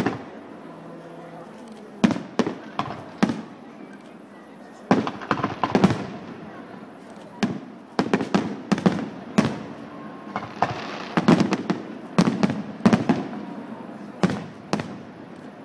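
Fireworks display: aerial shells bursting in a rapid series of sharp bangs, coming in clusters with short gaps between them.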